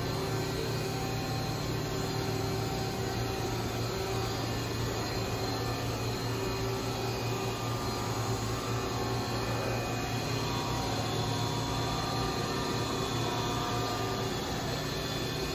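A steady mechanical drone with a constant low hum and a few faint steady tones, unchanging throughout.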